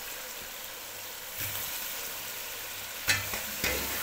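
Chicken pieces and tomato-onion masala frying in hot ghee in an aluminium pot, a steady sizzle. About three seconds in, a metal ladle starts stirring, clattering against the pot twice.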